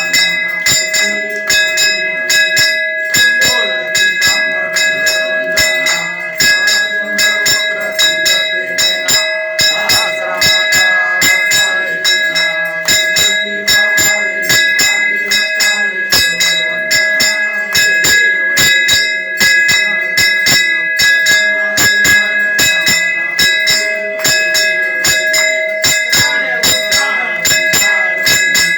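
Temple bells struck rapidly and without pause, their ringing tone held steady throughout under a dense train of strikes.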